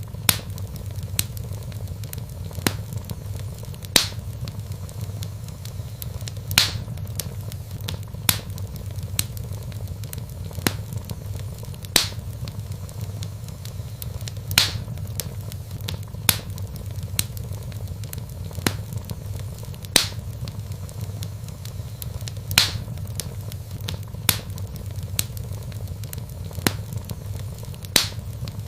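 Wood fire burning in a fireplace: sharp crackles and pops at irregular intervals, about one every second or two, over a steady low rumble of the flames.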